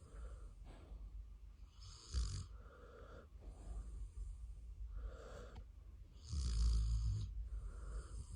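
Samoyed dog snoring, a series of rasping breaths, the loudest about six and a half seconds in.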